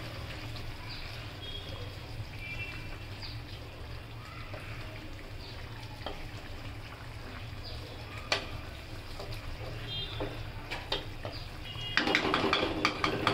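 Vegetable curry simmering in a nonstick wok and being stirred with a wooden spatula: scattered knocks of the spatula against the pan, then a denser clatter of stirring near the end, over a steady low hum.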